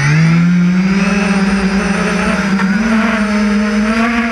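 Quadcopter drone's electric motors and propellers spinning up from rest. The pitch rises over about the first second, then the motors hold a steady, loud whine at speed.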